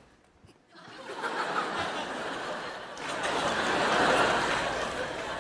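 Audience laughter that starts about a second in and swells, then eases near the end.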